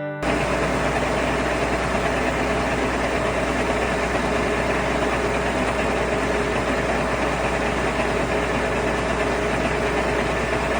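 Heavy farm engine running steadily under the grain bag extraction work, an even drone with a strong low hum. It comes in abruptly just after the start.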